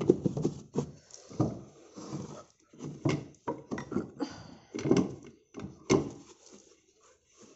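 Hands handling a switched-off domestic flour mill's cloth flour bag and container: a series of irregular knocks and thumps.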